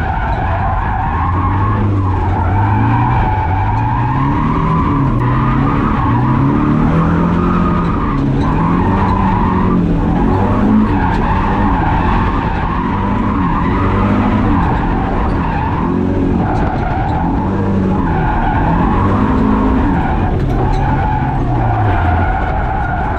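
Drift car engine revving up and down over and over while the tyres skid, its pitch climbing, levelling off and dropping back every second or two. Its top end is flat, which the driver puts down to the engine breaking up at about 5,000 rpm, as if hitting the rev limiter.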